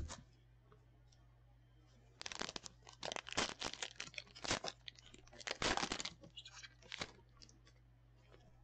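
Foil trading-card pack wrapper being torn open and crinkled by hand: a single sharp tap at the start, then about five seconds of dense crackling and ripping.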